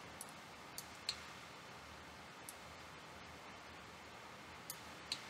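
A few faint computer mouse clicks over quiet room tone.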